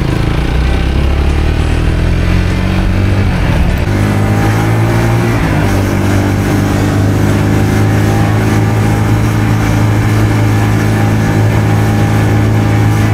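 Lexmoto motorcycle engine running under way, its pitch rising and then shifting abruptly about four seconds in before holding steady.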